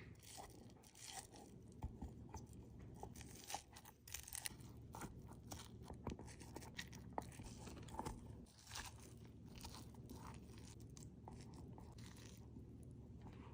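Faint, scattered crunching and small clicks of food being handled and packed into a rubber feeder toy.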